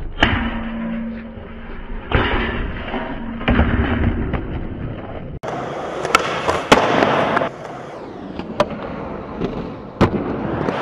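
Skateboard wheels rolling on concrete, broken by several sharp clacks of the board popping, hitting and landing. The sound changes abruptly about five seconds in, where a different skating clip begins.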